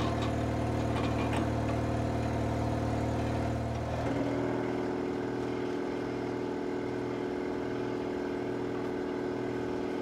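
Air compressor running steadily. About four seconds in, its deep low hum drops away and a higher steady hum takes over.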